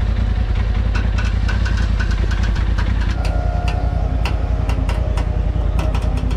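A vehicle engine idling steadily, with scattered light clicks and knocks over it.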